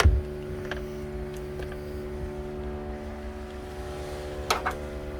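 A thump in a car's rear cargo area as the floor panel is handled, then a few light clicks and a softer knock about four and a half seconds in, over a steady low hum.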